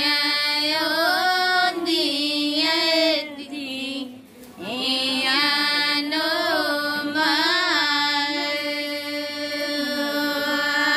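Women singing a Hindu devotional bhajan together, drawn-out sung notes in two long phrases with a short pause for breath about four seconds in.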